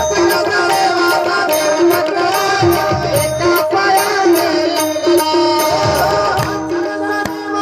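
Marathi devotional bhajan (gaulan) music: tabla playing a rhythm, with deep bass-drum strokes twice, under sustained melodic notes and jingling hand percussion that keeps an even beat.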